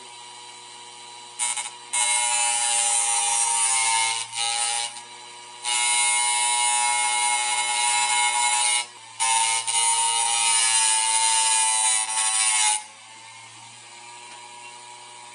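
A steel nail ground against sandpaper glued to a spinning hard-disk platter: a loud grinding noise in several passes of two to four seconds each. Under it runs the steady whine of the hard drive's spindle motor, which is heard alone near the end.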